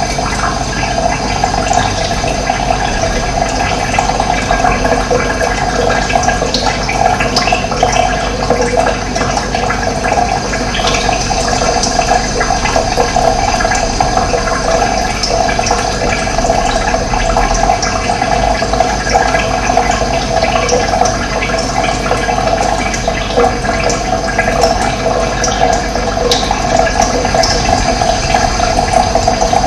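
Running water flowing steadily, an even rushing sound.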